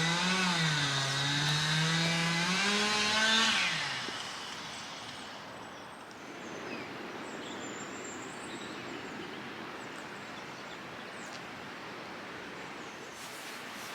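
A motor vehicle's engine passing close by, its pitch rising and falling, then dropping and fading about four seconds in. After that a steady outdoor hiss remains, with a few faint bird chirps.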